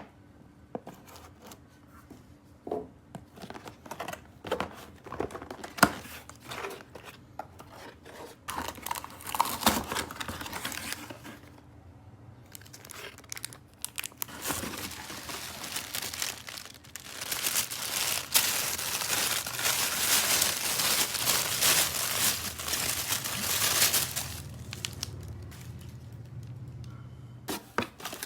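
Toy packaging being unboxed: scattered clicks and taps at first, then about halfway through a long stretch of continuous tearing and crinkling lasting around ten seconds.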